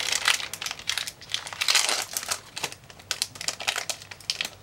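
Foil Pokémon booster pack wrapper crinkling and crackling as it is torn open by hand, a dense run of irregular crackles.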